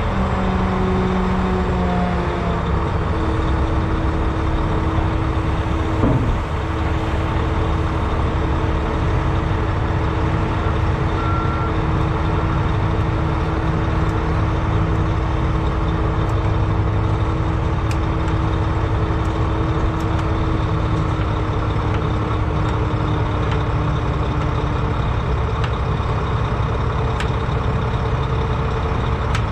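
Mack semi truck's diesel engine running steadily while the hydraulic hoist raises the dump trailer's box, with a steady hum over it that fades out about three-quarters of the way through.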